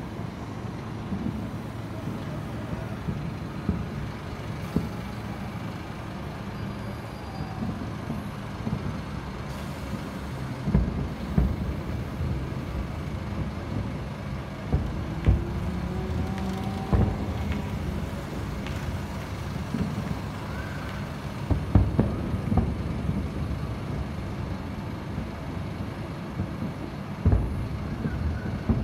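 Distant aerial firework shells bursting: several booms at irregular intervals, the loudest about three quarters of the way through, over a steady low background rumble.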